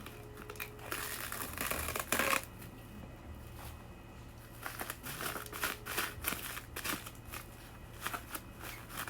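Plastic cling film crinkling as it is stretched and wrapped around a ball of stuffing, in irregular clusters of crinkles.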